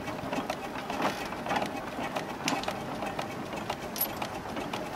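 Steam traction engine running, with a rapid, even clicking from its moving parts. A short, high squeak about four seconds in.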